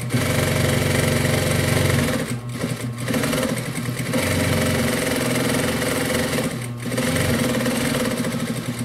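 Consew 230 industrial straight-stitch sewing machine stitching garment fabric in several runs with a few short pauses. It is driven by a clutch motor fitted with a small pulley, so it runs well below its top speed, over the motor's steady hum.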